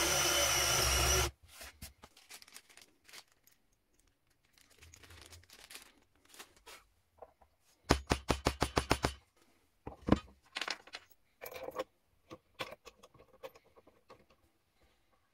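A cordless drill with a Forstner bit boring into particleboard for about a second, then stopping. This is followed by light handling knocks. About eight seconds in comes a rapid run of about ten hammer taps over a second and a half, then a few scattered knocks.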